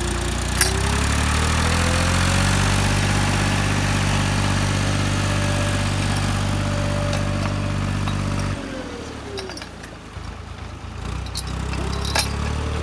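Ursus tractor's diesel engine revving up and held at high revs as it pulls through deep paddy-field mud, the tractor having got stuck. About two-thirds of the way through the engine note drops away suddenly, then picks up again near the end; a sharp click sounds about half a second in.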